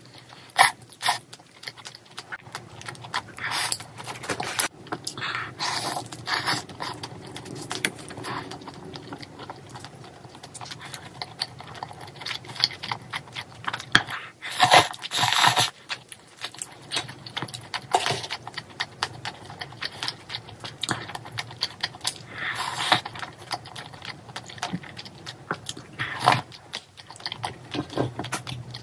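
Close-miked mukbang eating sounds: chewing and biting into spicy braised chicken and glass noodles, with many irregular soft smacks and clicks. Louder noisy stretches about fifteen and twenty-three seconds in, as glass noodles are slurped.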